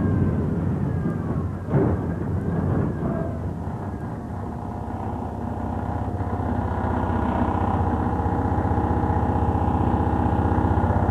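Tram running, with a sharp clank about two seconds in, then a steady electric motor hum of several held tones that slowly grows louder.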